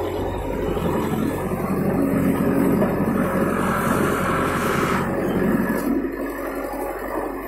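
Diesel engine of a JCB backhoe loader running under load while the backhoe arm works, heard from inside the cab. It pulls harder and louder through the middle few seconds, then eases off about five seconds in.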